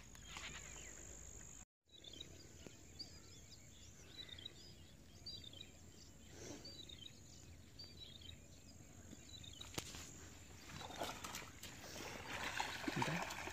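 Faint outdoor ambience at a reedy marsh edge, with scattered short, high bird chirps through the middle. Rustling noise builds over the last few seconds.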